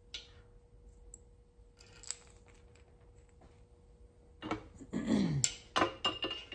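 Steel tools and cast-iron fixture parts knocking together: a couple of light clicks, then about four and a half seconds in a run of metallic clanks and a scrape as the Kwik-Way portable valve seat cutter's arm is set onto its mounting plate on the engine block.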